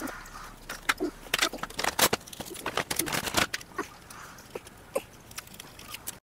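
Small packaged items and plastic bottles being handled and unwrapped: irregular crinkles and clicks, thickest in the middle.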